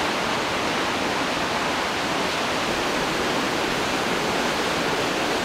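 Steady, unbroken roar of a waterfall's rushing water, with no change in level.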